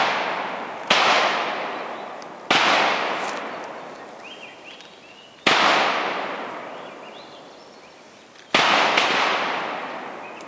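Four single rifle shots, spaced one and a half to three seconds apart. Each is a sharp crack that echoes and dies away over a couple of seconds.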